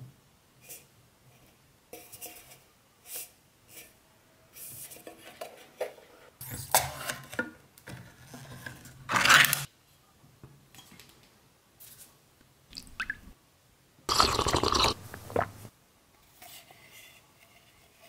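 Ring-pull lid being peeled off a metal tin can: light taps and clicks on the can, then scraping and tearing of thin metal as the lid comes away, and a second loud stretch of scraping and rustling as the open can is handled.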